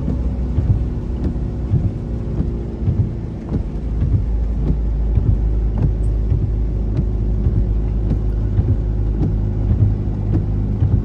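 A motor vehicle's engine running with a steady low hum, with many short sharp taps scattered over it.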